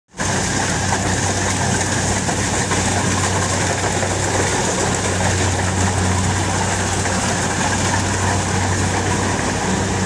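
Tracked rice combine harvester running while it cuts standing rice: a steady engine hum under an even rush of mechanical noise, loud and unchanging throughout.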